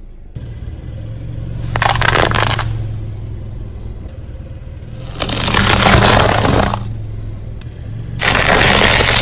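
A car's engine running low and steady while its tyre crushes things. Three loud bursts come over it: a quick run of sharp cracks about two seconds in, then two longer stretches of crunching, hissing noise.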